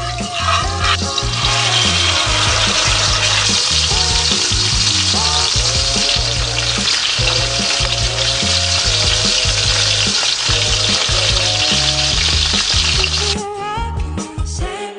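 Tilapia frying in hot oil, a loud steady sizzle over background music with a steady beat; the sizzle cuts off suddenly near the end, leaving the music.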